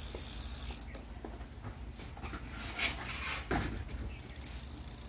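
Irregular ratcheting mechanical clicks from work on the bicycle, with two louder knocks a little past the middle.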